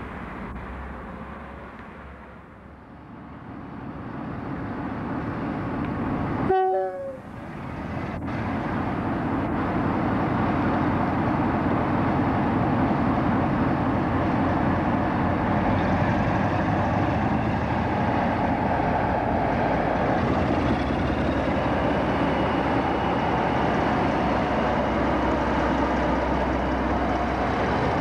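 A brief two-note train horn sounds about six and a half seconds in. After it, a Class 47 diesel locomotive's Sulzer twelve-cylinder engine runs loudly and steadily close by as the locomotive moves along the platform. Before the horn, a quieter rumble of a Class 159 diesel multiple unit approaching.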